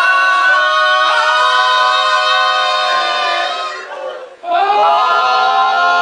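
Male vocal quartet singing a cappella in harmony, holding long sustained chords. The voices break off briefly about four seconds in, then come back in together.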